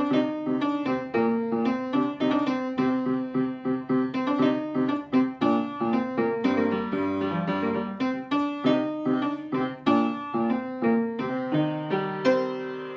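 Upright piano played live: a steady run of quick, repeated notes over a lower line, ending on a chord that is held and left to ring near the end.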